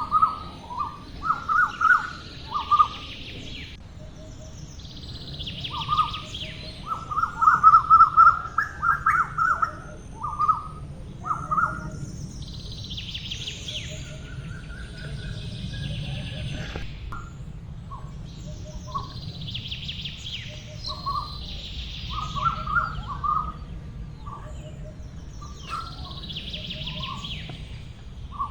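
Birds chirping: clusters of short, repeated chirps, with fainter, higher twittering coming and going in waves.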